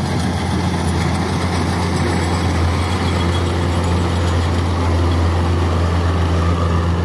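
Kubota DC-105X rice combine harvester running hard while it cuts and threshes rice: a loud, steady diesel engine drone with a strong low hum under the machine's clatter.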